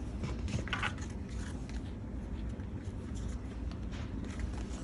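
Low steady room hum with faint handling of paper craft pieces, including a brief rustle just under a second in.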